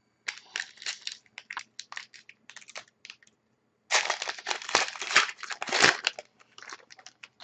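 A 2011–12 Panini Contenders hockey card pack wrapper being handled, torn open and crumpled. Scattered crinkles build to a dense spell of crinkling and tearing about four seconds in, lasting about two seconds, then a few lighter crackles.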